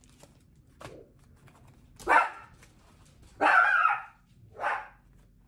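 Pet dog barking three times, the middle bark the longest, in reaction to a garbage truck outside.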